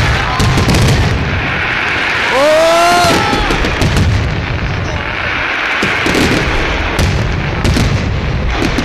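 Fireworks display: continuous booming shell bursts and crackling, with a rising whistle from a whistling firework about two and a half seconds in.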